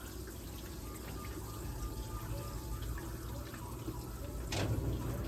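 Electrolux Ecologic LEC12 washing machine in its intermediate spin: water running out through the drain over a steady low hum. About four and a half seconds in there is a click, and the hum then gets louder.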